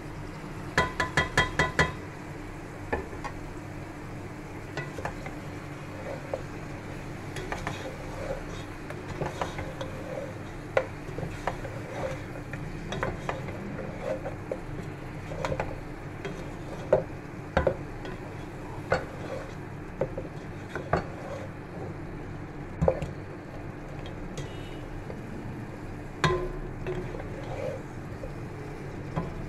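A wooden spatula stirs mutton pieces in a non-stick pot, with scattered knocks and scrapes against the pan over a steady low hum. About a second in comes a quick run of ringing taps: a ceramic plate tapped on the pot's rim to shake off the spice powders.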